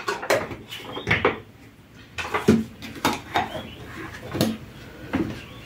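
Dishes and kitchenware being handled at a kitchen counter: a run of irregular clinks and knocks, the loudest about two and a half seconds in.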